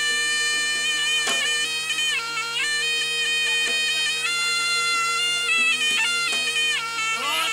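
Live jaranan music led by a slompret, the Javanese double-reed shawm, playing long held notes that step down and up. Under it runs a steady, repeating percussion accompaniment.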